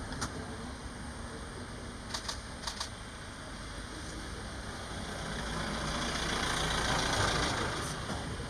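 Safari vehicle's engine idling steadily, with a few sharp clicks about two to three seconds in and a hiss that swells and fades around six to seven seconds in.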